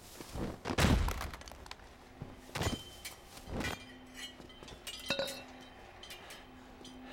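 A series of heavy thuds and knocks: one loud one about a second in, then three more spread over the next few seconds, with a few light clicks between them.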